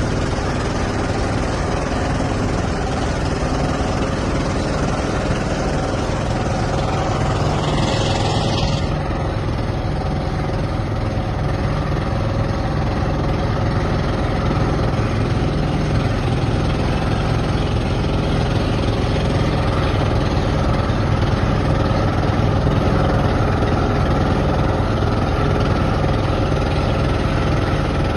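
An engine running steadily, a continuous low drone. A short hiss rises over it about eight seconds in.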